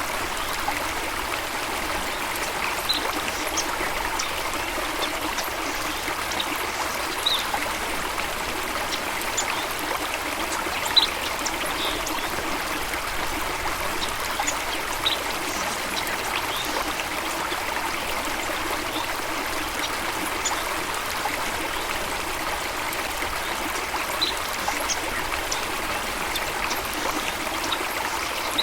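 Running water flowing steadily, with short, sharp high-pitched ticks scattered through it every second or two.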